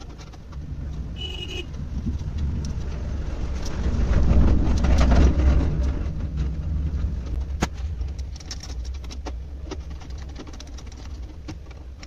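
Small metal clicks and scrapes of an SSD being screwed into a desktop computer case's steel drive cage, over a low rumble that swells about four to six seconds in.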